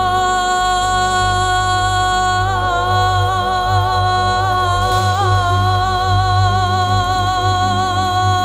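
Female vocalist holding one long sung note with a slight vibrato over a band's backing with a sustained electric bass, in a Caribbean-flavoured arrangement of a Bosnian sevdalinka.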